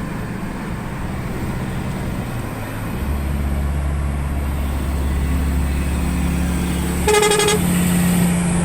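A road vehicle's engine runs with a deep rumble, and about seven seconds in a horn sounds a short high toot, followed by a lower held tone.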